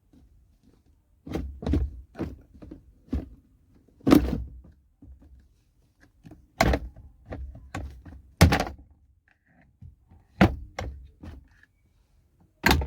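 Plastic glove box of a Maruti Suzuki WagonR being fitted back into the dashboard: a string of irregular knocks, thuds and clicks, starting about a second in.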